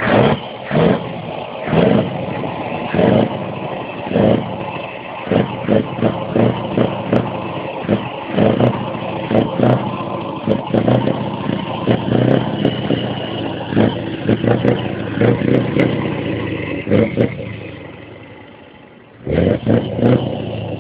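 Scania 164 V8 diesel truck engine revved again and again in short throttle blips over its steady running. About three-quarters through, the sound dies down gradually, then comes back suddenly at full level with more blips.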